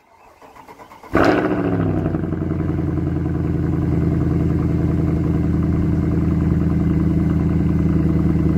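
A car engine being started: faint rhythmic cranking, then it catches about a second in with a brief rev and settles into a steady idle.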